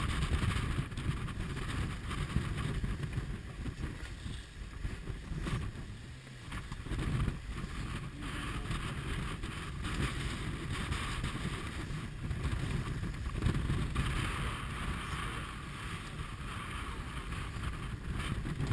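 Wind buffeting the microphone on a J/30 sailboat heeled hard in chop, with water rushing and spraying along the hull. The rush swells and eases with the waves.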